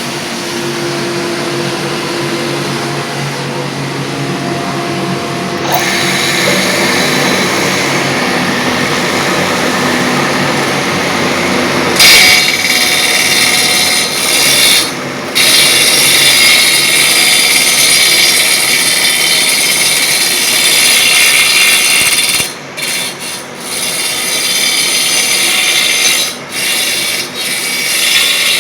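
Copying wood lathe running and turning a baluster: a steady motor hum, then the cutter biting into the wood about six seconds in, with the cutting noise growing louder and harsher about halfway through and dipping briefly several times near the end.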